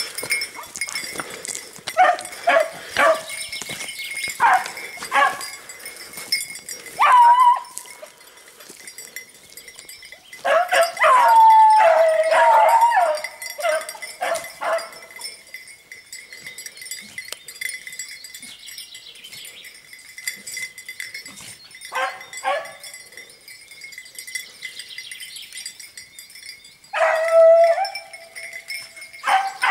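Beagles baying in bouts of short yelps and long drawn-out bays: a pack giving tongue while tracking a hare. The longest run of bays comes about a third of the way in and lasts several seconds, and a single long bay comes near the end.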